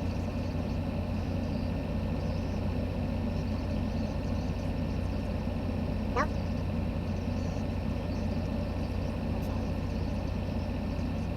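Steady engine drone of a farm machine running at constant speed, with a single short squeak about halfway through.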